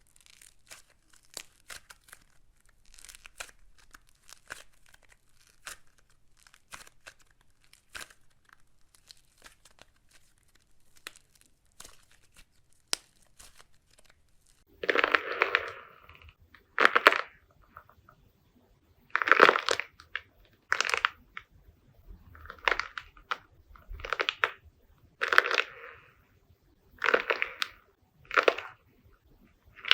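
Slime being handled by hand: faint, rapid crackles and clicks for the first half, then, about halfway in, loud separate presses or squeezes about every one and a half to two seconds.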